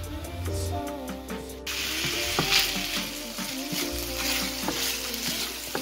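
Diced chicken frying with garlic in melted butter in a pan, sizzling steadily. The sizzle starts suddenly about a second and a half in, under background music.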